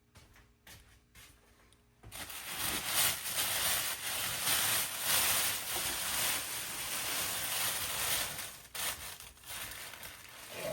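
Plastic packaging crinkling and rustling as it is handled and pulled off, starting suddenly about two seconds in and going on steadily.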